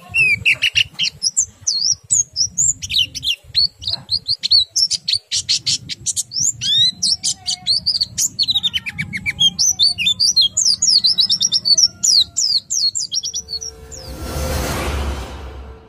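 A pleci (white-eye, Zosterops) singing a fast, unbroken run of high twittering chirps, trills and sharp whistled notes. Near the end the song gives way to a loud rushing noise that fades out.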